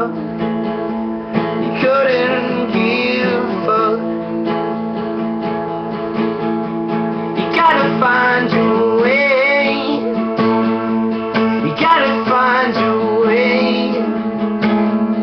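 Acoustic guitar strummed in an instrumental passage of a song, with a wavering melody line rising and falling over it a few times.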